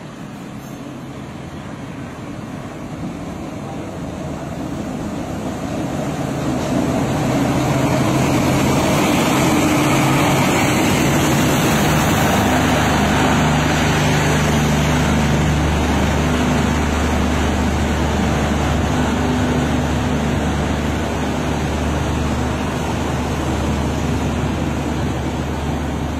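Diesel-hauled passenger train pulling into the station. The noise grows over the first several seconds as the train comes alongside, then settles into a steady low engine hum as the carriages roll slowly past and slow down.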